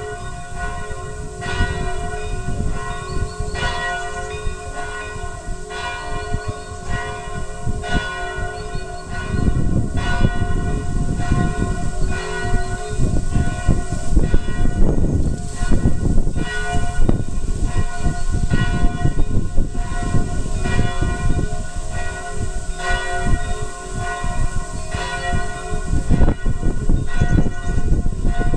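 Church bells pealing: several bells struck over and over, about once a second, their tones ringing on together. A low rumbling noise lies underneath and grows louder about nine seconds in.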